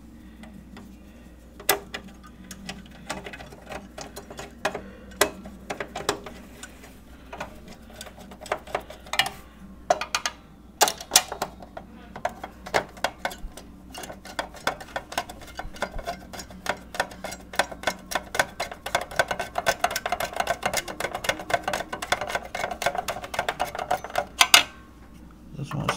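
Screws being turned back into the metal frame of a Dell Dimension E521 desktop with a screwdriver: scattered clicks and knocks of metal, then rapid, steady clicking for about the last ten seconds as a screw is driven home.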